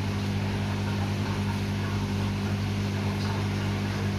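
A steady low hum from a running machine, with an even hiss over it and no breaks or changes.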